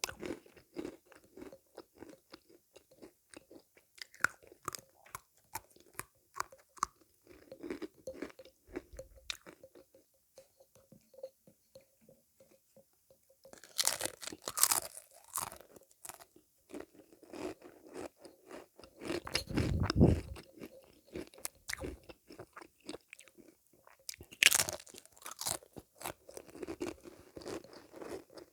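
Sweets being chewed and crunched close to the microphone: many small crisp clicks, with loud crunchy bites about 14 seconds in and again about 24 seconds in. A dull low rumble about 20 seconds in is the loudest moment.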